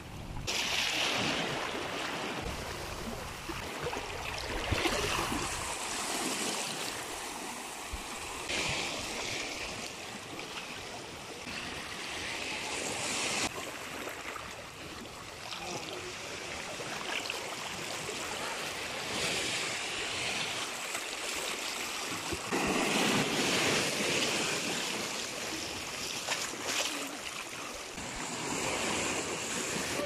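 Small ocean waves washing in among rocks and over sand, the surf swelling and easing every few seconds.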